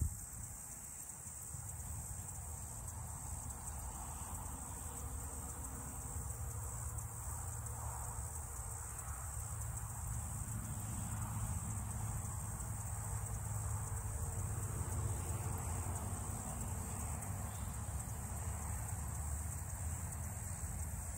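Steady high-pitched chorus of insects, unbroken throughout, over a low rumble that grows a little louder partway through.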